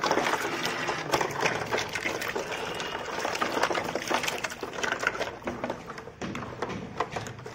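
Water splashing and sloshing in a plastic tub as hands stir small plastic toy cars around, with many light knocks of the toys. Loudest about the first second, then easing off.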